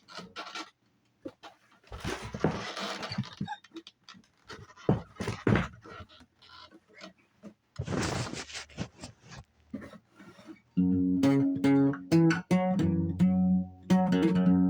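Guitar in Dobro tuning: scattered scraping and brushing noises with a few plucked notes, then about eleven seconds in fingerpicking starts, with ringing notes over a steady bass.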